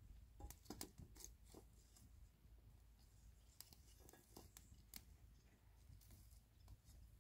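Near silence: a low steady hum with a scattering of faint, short clicks and taps.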